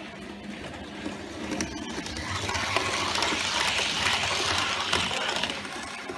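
Model train rolling past close by on layout track, its wheels rattling and clicking over the rails, growing louder to a peak about four seconds in and then easing off, over a steady low hum.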